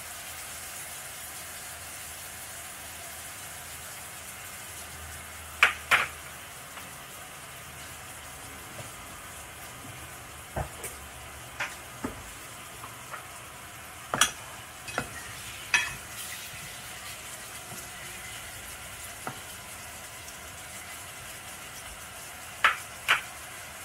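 Chicken pieces frying in a pan, a steady sizzle, with occasional sharp clicks and knocks of utensils. Near the end, two knocks come from a spatula against the pan as the chicken is stirred.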